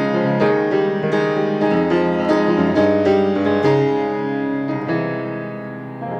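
Acoustic grand piano playing a flowing passage of notes and chords, fresh notes struck every half second or so, the playing thinning out and the notes ringing away near the end.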